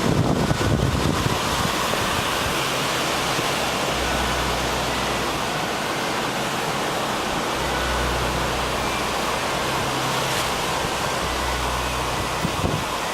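Sea surf rushing steadily, with wind, and a low hum that comes and goes underneath.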